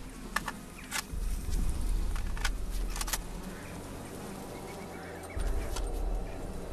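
Soldiers' footsteps and kit moving through woodland undergrowth: scattered sharp snaps and rattles, like twigs breaking underfoot, over a low rumbling drone. The drone thins out briefly past the middle and then returns.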